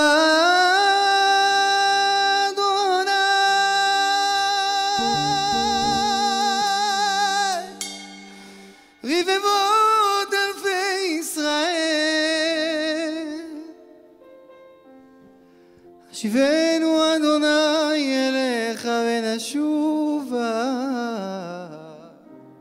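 A man singing an improvised cantorial-style melisma: a long high note held with vibrato for about eight seconds, then two runs of ornamented, wavering phrases separated by short pauses.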